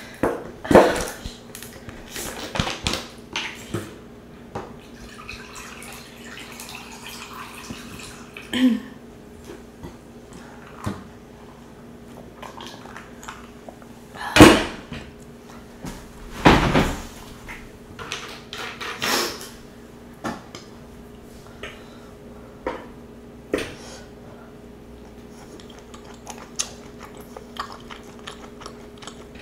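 Scattered clinks and scrapes of a metal fork against a nonstick electric griddle pan, with a plastic drink bottle opened near the start and a few louder knocks, over a steady low hum.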